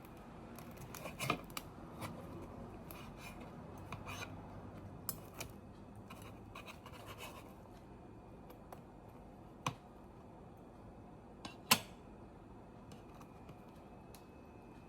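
Light scratching and rustling with scattered small clicks and taps, and two sharper clicks in the second half.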